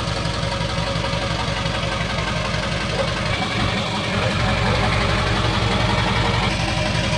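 Ford tow truck's engine idling steadily with an even low pulse.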